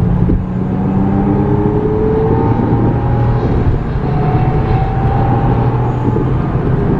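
Porsche Carrera 4's flat-six engine running under way, heard from inside the cabin with a steady wash of road noise; its pitch climbs slowly a couple of times as it accelerates.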